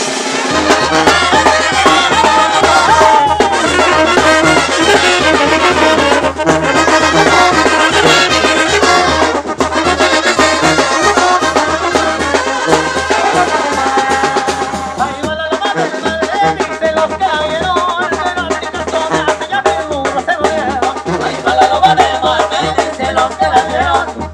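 Mexican brass banda playing live: trumpets, trombones and clarinets over a tuba bass line, with tarola and timbal drums and cymbals keeping a steady beat. The music drops out for a moment about two-thirds of the way through, then carries on.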